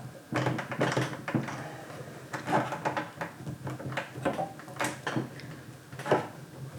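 Scattered small clicks and rustles of hands handling a 1/6 scale plastic action figure and its parts.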